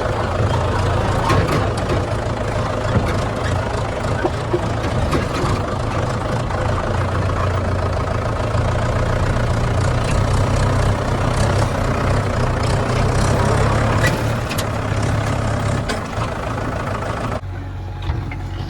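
Heavy diesel engine of earthmoving machinery running steadily under work, with scattered metallic clanks and knocks. Near the end the sound turns abruptly duller.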